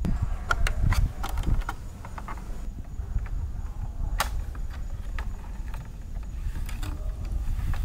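Cable and connector handled against a plastic charging-station base as the cable is pressed into its clips: scattered light plastic clicks and taps, one sharper click a little after four seconds in, over a steady low rumble.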